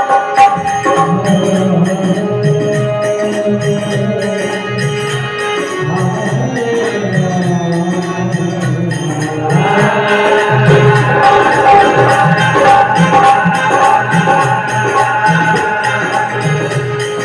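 Live Indian folk-devotional music: sustained melody notes over a steady drum beat with jingling percussion, and a sung phrase near the middle.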